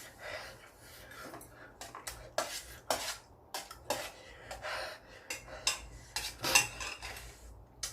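Eating utensils clinking and scraping against dishware while noodles are eaten, in irregular clatters with the loudest about six and a half seconds in.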